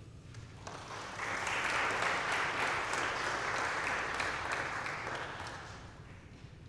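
Congregation applauding in a large room, swelling in about a second in, holding, then dying away near the end, as a piece of music finishes.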